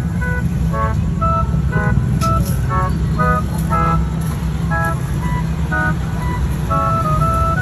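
A bright, tinkly jingle of short notes plays a simple tune, like an ice-cream-van melody, over a steady low hum.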